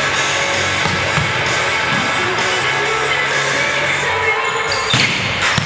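Background song with singing, with a couple of sharp hits near the end.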